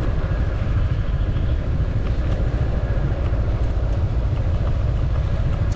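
Motorcycle running at a steady riding pace, heard as a continuous low rumble with no clear change in engine speed.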